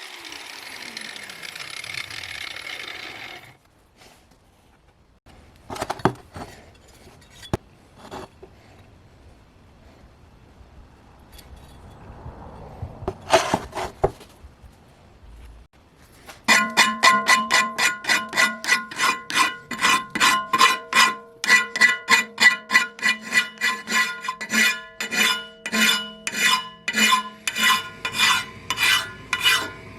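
Steady hand strokes rubbing or filing across a steel cleaver blade, about two a second, with the blade ringing at several clear pitches under each stroke. A few scattered knocks come before the strokes begin.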